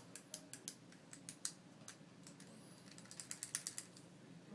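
Light, irregular plastic clicks and taps from a dryer door switch being worked by hand, its actuator pressed over and over, quickening near the end. The switch gives no proper click, the sign that the door switch is faulty.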